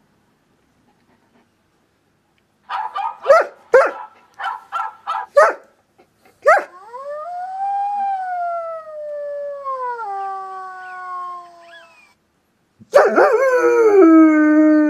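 German shepherd dog giving a quick run of about seven short barks, then one long howl that rises and slowly falls in pitch. A second howl starts near the end.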